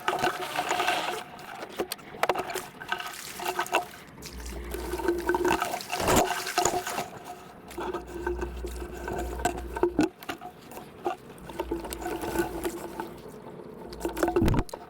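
Water sloshing and splashing, with scattered knocks and a steady hum that comes and goes.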